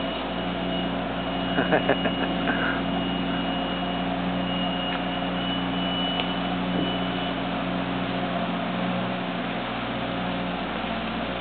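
The barge's engine running steadily as the boat gets under way, a constant low drone.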